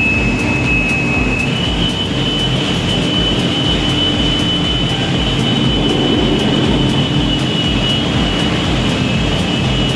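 Industrial panel saw in a cabinet factory running and cutting board, a loud steady machine noise with a high blade whine that steps up in pitch about a second and a half in.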